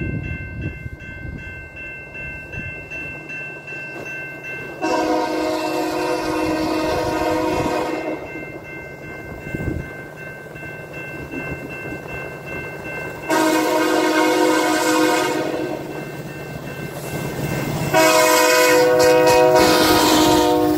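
Diesel freight locomotive air horn sounding three long chords as a Canadian Pacific train approaches: about five seconds in, about thirteen seconds in, and again near the end, the last one loudest. Between the blasts the train rumbles on the rails.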